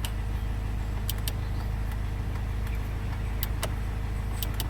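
Land Rover Freelander 1 hazard lights flashing: sharp clicks from the hazard flasher, several of them in close pairs, over a steady low rumble from the car, now that the refitted hazard switch works.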